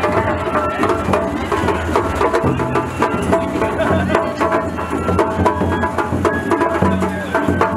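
Japanese festival bayashi from the float: drums and clacking percussion in a steady, busy rhythm under a high melody that steps from note to note.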